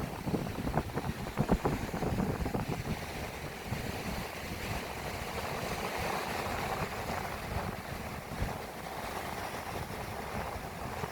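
Sea waves washing with wind buffeting the microphone: gusty rumbling for the first few seconds, then a steady wash.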